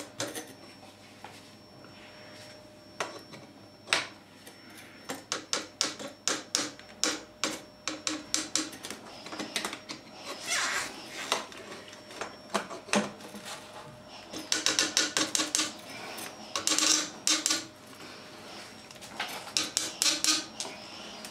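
Water pump pliers clicking against a brass stop tap's compression nut as it is tightened onto MDPE pipe a bit at a time: runs of quick metallic clicks with short pauses between.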